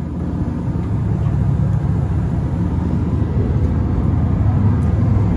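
Fishing boat's engine running steadily, a constant low drone with a light rush of wind and water over it.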